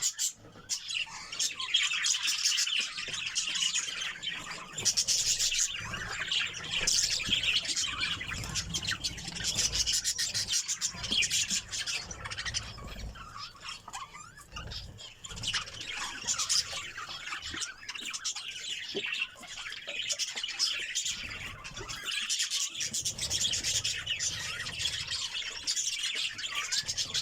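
A flock of budgerigars chattering, many rapid chirps and warbles overlapping continuously.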